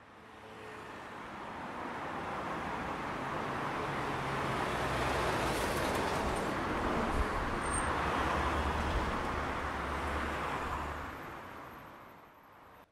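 Field recording of city traffic: a steady wash of road noise with a low engine rumble, fading in over the first few seconds and fading out near the end.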